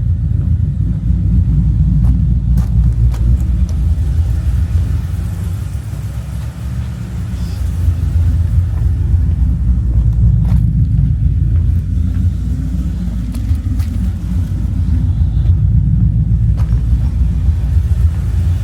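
Ford Mustang GT's V8 idling with a loud, steady low rumble, warming up after a start.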